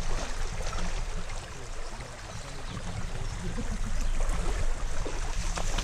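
Wind buffeting the microphone as a low, restless rumble, over the wash of water in a shallow muddy stream.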